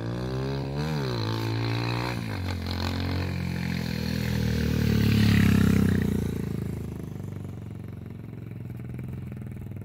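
Motorcycle engine revved up and down twice in the first couple of seconds, then growing louder to a peak about five to six seconds in and fading away.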